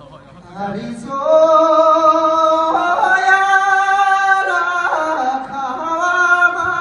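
Tibetan-style singing: a single voice holding long, high notes that start about half a second in, step up in pitch about three seconds in and come back down a second and a half later.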